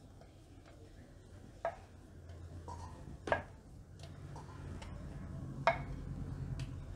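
Dough being rolled out into a round with a wooden rolling pin on a wooden rolling board: a soft low rumble of rolling, broken by a few sharp clicks. Three clicks stand out, about a second and a half to two seconds apart.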